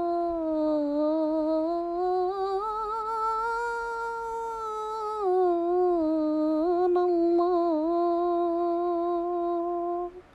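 A woman's voice humming one long, drawn-out note in a slow devotional chant. The pitch dips, rises for a few seconds in the middle and then settles back, with a slight waver, before stopping just before the end.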